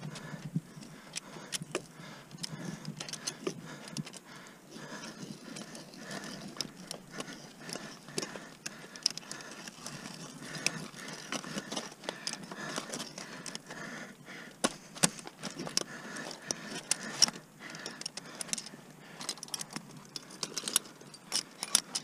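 Metal climbing hardware clinking, carabiners and ice screws jangling on an ice climber's harness, with scattered sharp ticks and scrapes against the ice.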